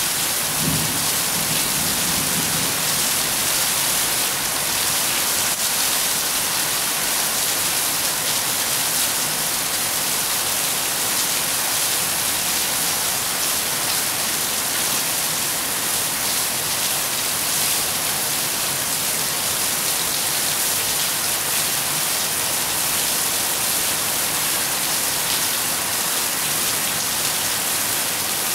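Steady rain falling, an even hiss of many drops that does not let up.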